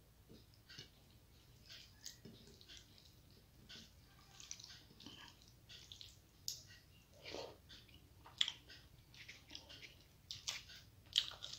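Close-miked eating sounds: chewing with many small wet clicks and smacks, and fingers mashing rice into dal on a plate.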